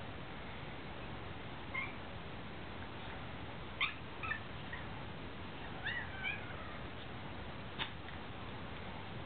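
A cat giving a few short, brief meows spread through the stretch, one falling in pitch, over a steady hiss. Two sharp clicks fall between them, the first the loudest sound.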